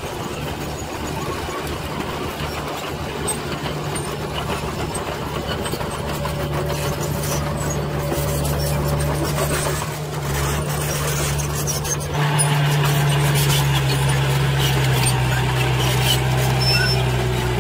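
Diesel engine of a dump truck running steadily while its raised bed tips out a load of soil. About 12 seconds in the sound changes to a louder Komatsu crawler bulldozer, its diesel engine working as it pushes soil with its blade.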